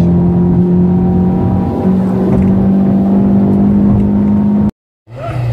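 A car engine droning steadily, heard from inside the cabin while driving at speed. It breaks briefly about two seconds in and resumes a little higher in pitch, then cuts off abruptly near the end.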